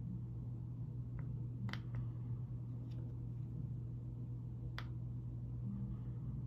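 Several separate sharp clicks, two louder than the rest, as the power button on a DJI Air 2S drone is pressed, over a steady low hum.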